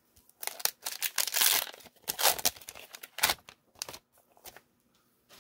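Foil wrapper of a 1999 Topps Gold Label trading card pack being crinkled and torn open, a run of crackly rustles lasting about three seconds, followed by a few faint taps.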